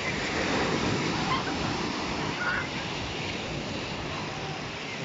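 Black Sea waves washing onto the beach: a steady surf hiss.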